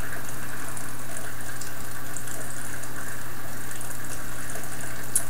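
Steady hiss with a low hum under it, the constant background noise of the room and recording. There is one faint click near the end.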